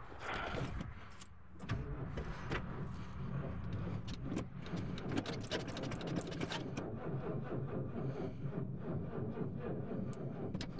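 Starter turning over the Mercury station wagon's big V8 slowly and weakly, with a low steady hum and a slight pulse, without the engine firing: the battery is too low to start it. The cranking sets in about two seconds in.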